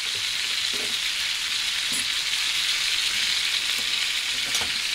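Thick ribeye steak searing over high heat in a pan of clarified butter and garlic: a steady, even sizzle, with a couple of faint clicks.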